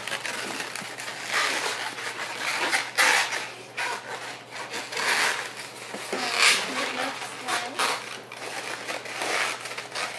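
Twisting balloons being rubbed and twisted by hand: irregular rubbing and crinkling scrapes with short squeaks of stretched latex.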